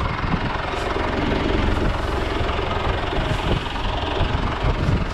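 John Deere 3200 telehandler's diesel engine running steadily close by, a continuous low rumble.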